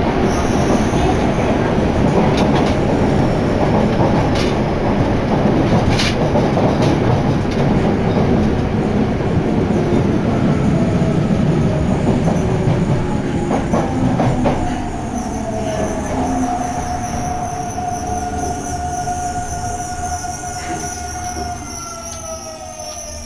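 Yokohama Municipal Subway Blue Line train running through the tunnel with a loud rumble and a few sharp clicks. About halfway through the rumble fades and a motor whine sinks slowly in pitch as the train slows into a station.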